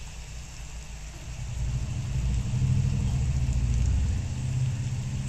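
A low rumble that swells about a second and a half in and eases again after about four seconds.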